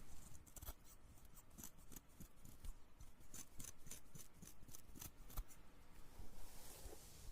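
Scissors snipping close to the microphone: a quick run of soft, sharp snips that stops about five and a half seconds in.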